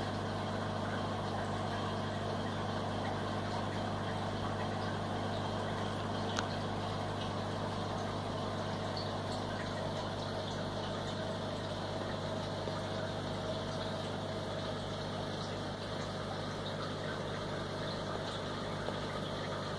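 Steady low hum of aquarium equipment running, a mains-driven pump, with one faint click about six seconds in.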